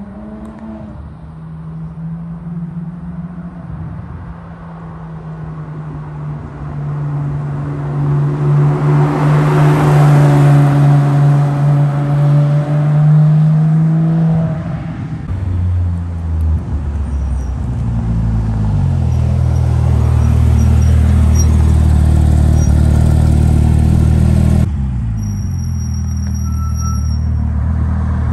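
Porsche 997.2 GT3 RS's 3.8-litre flat-six engine driving by. A steady engine note swells to its loudest about ten seconds in as the car passes. It then settles into a deeper, steady note at low revs, with an abrupt drop in level near the end.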